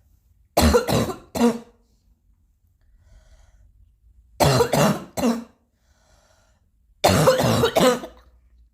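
Coughing in three short fits about three seconds apart, each made of two or three coughs in quick succession.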